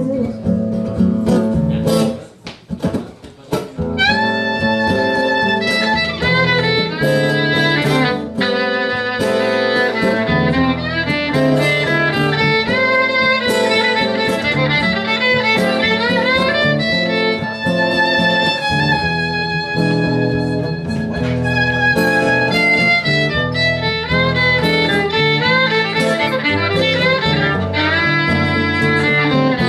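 Instrumental break of a live song: a violin plays a melody of long held and sliding notes over acoustic guitar accompaniment. The music drops away briefly about two seconds in, then comes back.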